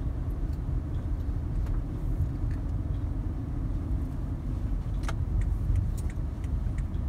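Road noise inside a moving car's cabin: a steady low rumble of engine and tyres. A few light clicks or rattles come between about five and six and a half seconds in.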